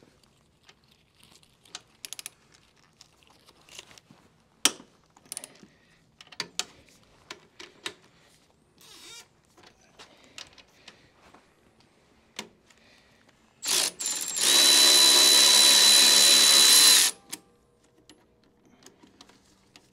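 Scattered small clicks and knocks of tools being handled. About three-quarters of the way in, a cordless ratchet gives a short buzz, then runs steadily for about two and a half seconds on a rear shock mounting bolt before stopping suddenly.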